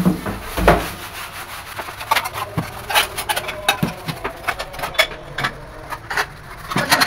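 Irregular clicks, knocks and rubbing from household things being handled and moved about at a kitchen sink, with a dull thump near the start.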